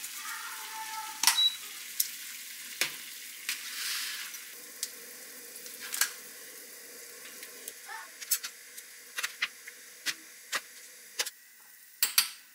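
Chicken blanching in a pot of water with whole peppercorns and bay leaves: a faint steady hiss of the heating water, with a dozen or so sharp clicks and taps scattered throughout.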